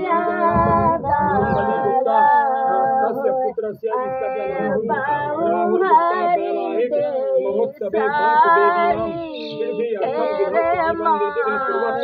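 Women singing a dehati village folk song, the bans gadne geet sung at the bamboo-planting rite, without instruments, in long held and gliding notes.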